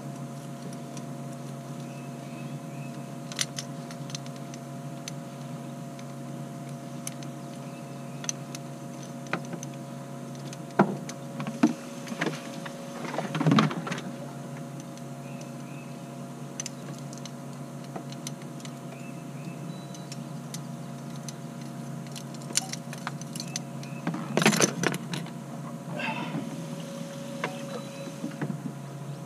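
Electric boat motor humming steadily, with a few clicks, knocks and short rustling bursts from handling gear on the boat, the loudest about thirteen and twenty-four seconds in.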